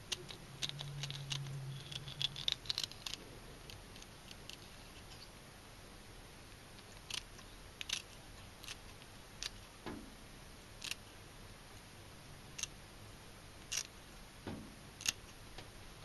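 Kitchen scissors snipping through the small backbone of a pale chub (oikawa): a string of faint, sharp, irregularly spaced snips.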